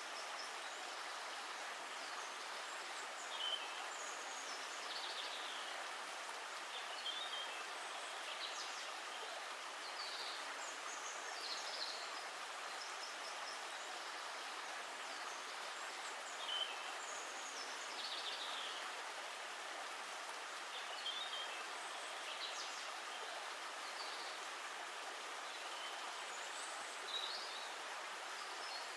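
Steady rushing of flowing water, with birds giving short high chirps every second or two.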